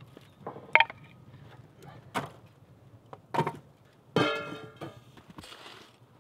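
Split firewood pieces knocked and set down on a metal barrel stove: a few sharp wooden clacks about a second apart. About four seconds in, a metal pot clanks down on the barrel and rings briefly.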